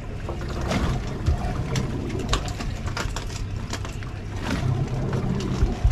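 Suzuki outboard motor idling with a steady low hum, under a haze of wind and water noise, with scattered light clicks and knocks.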